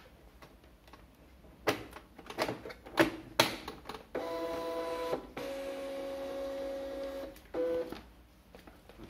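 GP1324D thermal label printer: a few sharp clicks and knocks as its lid is pressed shut, then its feed motor whirs in two steady runs of about one and two seconds, ending with a short final burst, as it feeds the label stock.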